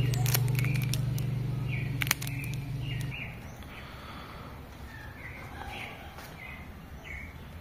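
Background music with a steady low note, with crinkling clicks of plastic wrap over it, fades out about three seconds in. After that, small birds chirp again and again.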